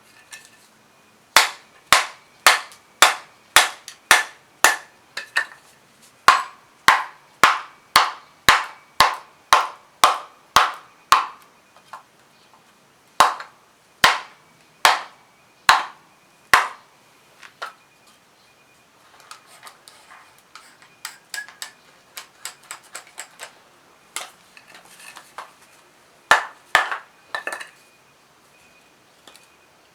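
Repeated hard strikes of an iron rod used to split small pieces of scrap wood for kindling: sharp knocks about two a second for some fifteen seconds. After a pause comes a run of lighter, quicker taps.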